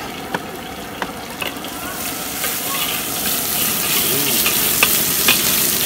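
Sliced vegetables sizzling in hot oil in a wok, with a metal ladle stirring them and clicking against the pan now and then. The sizzle grows louder about two seconds in.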